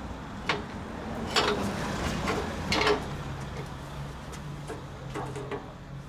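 Metal knocks and clanks as an air-conditioner rotary compressor is handled and set upside down in a steel stand to drain its oil: four sharp knocks in the first three seconds, then two lighter ones near the end. A low steady hum comes in about halfway.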